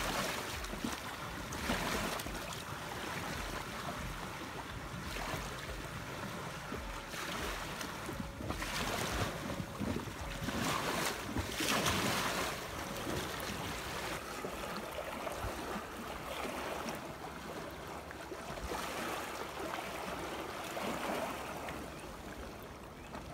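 Choppy lake water lapping and washing over a stony shore, surging every few seconds, with wind rumbling on the microphone. It grows quieter near the end.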